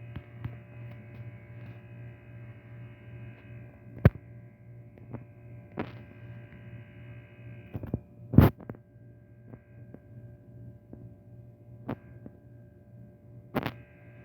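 Steady low electrical hum with about five sharp clicks scattered through it, the loudest a little past the middle.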